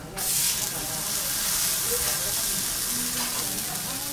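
Thick A5 Kobe beef steak sizzling on a hot steel teppanyaki griddle: the sizzle starts suddenly as the steak is laid down and then goes on steadily.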